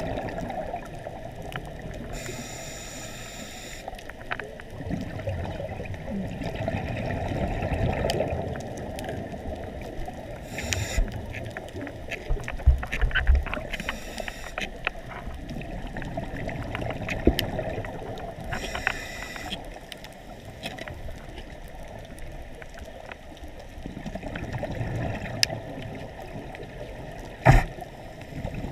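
Underwater sound heard through a camera housing: a scuba diver's regulator breathing, with a hissing inhalation every few seconds and bubbling, gurgling exhalations over a steady muffled rumble. Scattered sharp clicks run throughout, and a louder knock comes near the end.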